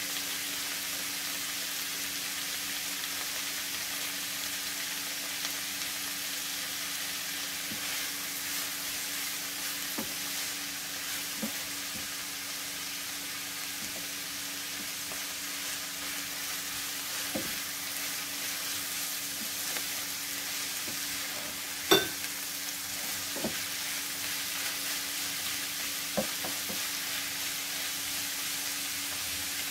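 Sliced cabbage, carrots, bell peppers and green beans sizzling as they stir-fry in a nonstick frying pan, turned with a wooden spatula. A few sharp clicks of the spatula against the pan; the loudest comes about two-thirds of the way through.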